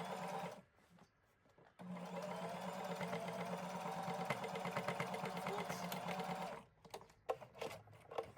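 Electric sewing machine stitching the thick denim waistband of jeans, running steadily, pausing for about a second, then running again for nearly five seconds before stopping. A few light clicks follow near the end.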